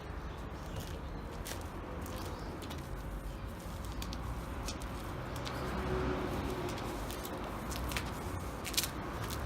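A dove cooing faintly over steady outdoor background noise, with a few sharp clicks.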